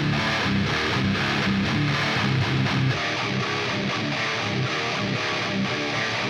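Guitar-led background music with a steady run of notes.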